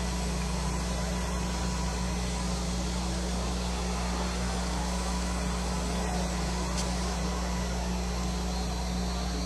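Demolition derby cars' engines running together in the arena, a steady low drone under a haze of noise with no distinct crash.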